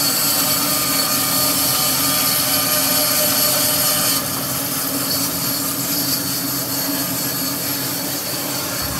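A 20-inch Jet bandsaw with a carbide-tipped Laguna Resaw King blade running and resawing a dogwood log, over the steady hum of a dust collector. The high hiss drops away about four seconds in.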